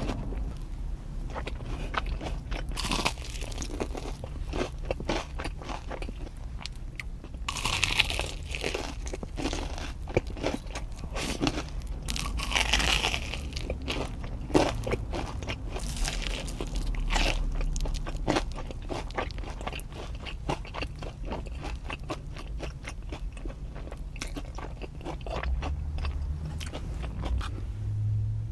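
Crisp fried batter of a Korean corn dog being bitten and chewed close to the microphone. Many small crackles run throughout, with a few louder crunching bites now and then.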